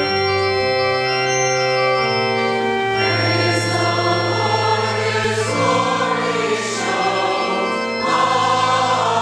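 Church organ playing sustained chords, changing chord about two seconds in; about three seconds in, a mixed choir enters singing over the organ.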